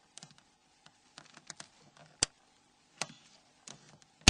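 Plastic antenna cover of a Nokia N93 being clicked into its housing by gloved fingers: three sharp plastic snaps, the loudest near the end, with lighter taps and handling in between.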